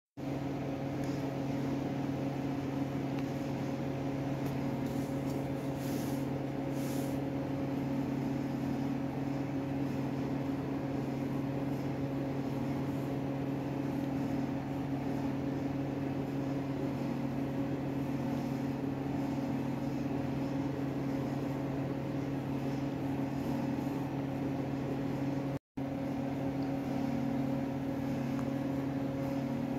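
Steady mechanical hum with a low drone and a few fixed tones, unchanging throughout, cut off for a split second near the end.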